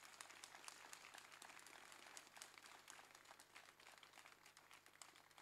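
Faint audience applause: many hands clapping in a dense, irregular patter.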